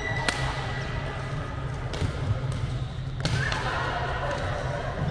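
Badminton rackets striking a shuttlecock in a rally: three sharp hits, a second or more apart, with players' footwork on the court floor between them.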